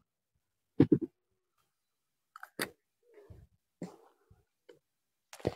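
A few faint, scattered clicks and rustles: a cluster about a second in, two more in the middle, and a sharper click near the end.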